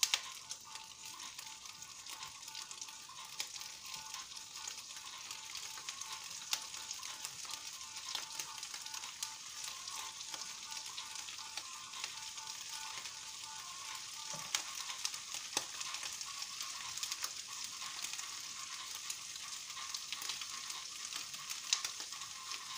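Raw prawns frying in hot oil with garlic in a nonstick pan, sizzling steadily with many small crackles and pops as more prawns are laid into the pan.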